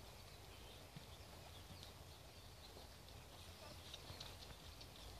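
Near silence: faint outdoor ambience, a low steady rumble with a few faint high chirps.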